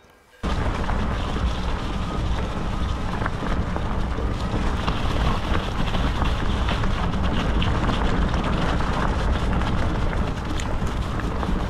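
Bicycle riding fast down a leaf-strewn dirt trail: wind rushing over the microphone, with tyres rolling over leaves and stones and the bike rattling in frequent small knocks. It starts suddenly about half a second in.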